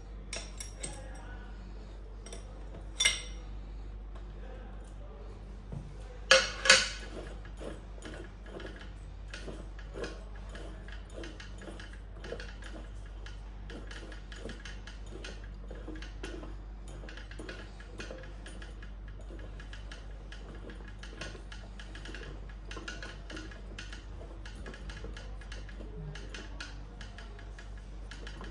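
Metal clinking and ticking as the metal terminal clamp on a distribution transformer's low-voltage bushing is loosened with a spanner and turned by hand. There are three louder clanks, one about three seconds in and two close together a few seconds later, then a run of light clicks.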